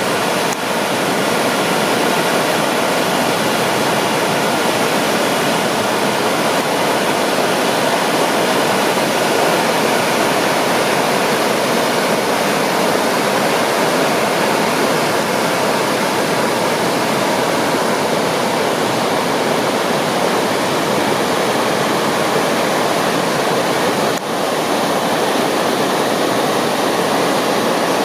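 Steady rush of the swollen Kamo River in flood, fast, high water running just under its flood-danger level after typhoon rain.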